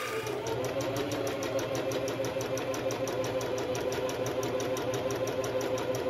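Electric sewing machine running at a steady speed, stitching through coiled cotton clothesline rope, with about eight or nine needle strokes a second over the motor's hum; it stops abruptly at the end.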